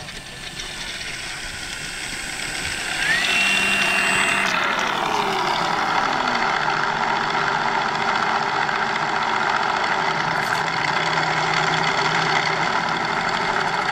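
Model aircraft motor noise at an airfield, getting louder about three seconds in and then holding steady, with a tone that falls in pitch over a couple of seconds.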